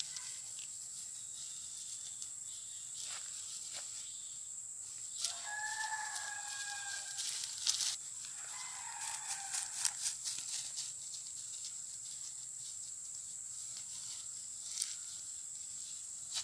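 Fern stems and dry grass rustling and snapping as fronds are picked by hand. A rooster crows about five seconds in, and a shorter animal call follows near nine seconds.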